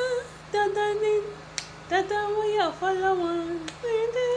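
A woman humming and singing a wordless tune, holding long notes in short phrases with brief pauses between them.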